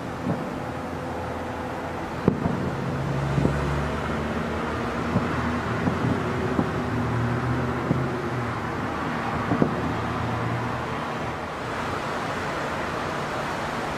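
Distant aerial fireworks shells bursting, heard as short bangs at irregular intervals through the first ten seconds, over a steady city background hum.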